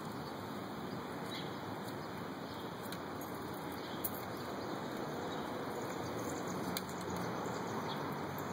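Steady outdoor background noise with a few faint, brief high chirps or ticks.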